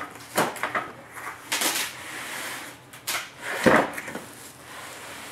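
A cardboard box being opened and a foam carry case slid out of it: scraping of cardboard against foam and a run of knocks, the loudest a thump a little past halfway.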